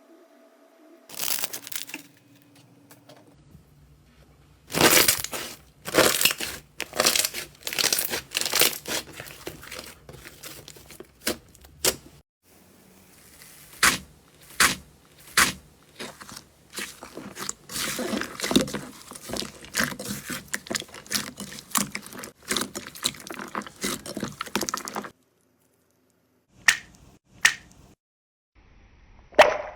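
Slime being pressed and squeezed, giving runs of sharp crackling pops and clicks. The sound stops for a moment near the end, and then a few single pops follow.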